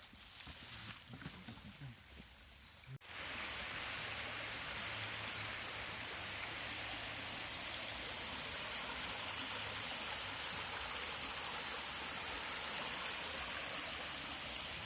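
Faint scattered outdoor sounds, then after a sudden cut about three seconds in, the steady, even rush of a flowing stream.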